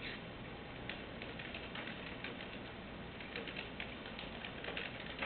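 Typing on a computer keyboard: faint, scattered key clicks that come faster near the end.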